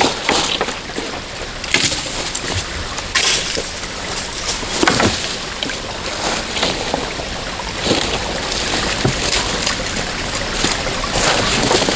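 Water sloshing and splashing, with several louder splashes spread through it.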